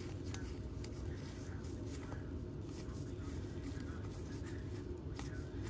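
Baseball trading cards being handled and flipped through, with scattered faint clicks and light rustles of card stock over a steady low hum.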